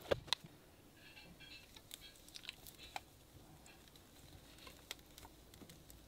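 Faint handling noise from unboxing: scattered light clicks and taps with a little soft crinkling, the loudest clicks right at the start.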